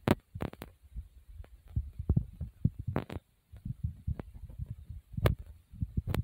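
Irregular low thumps and rumble of a hand-held phone being carried while walking, with a few sharp clicks of handling noise on the microphone.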